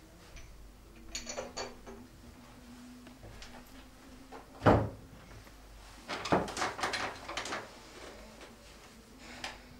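Knocks and light clatter of household objects being handled: a few clicks early on, one sharp knock a little before halfway, and a flurry of clattering soon after.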